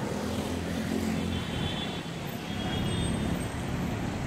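Road traffic noise: a steady hum of vehicle engines and tyres, with a low engine drone most prominent in the first second or so.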